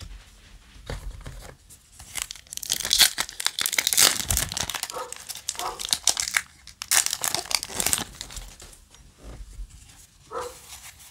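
Foil trading-card booster pack wrapper crinkling and being torn open by hand, in two main stretches of crackling a few seconds apart.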